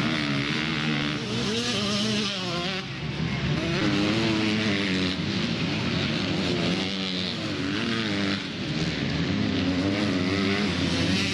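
Several motocross bikes racing, their engines revving up and down over and over as they accelerate, with more than one engine heard at once.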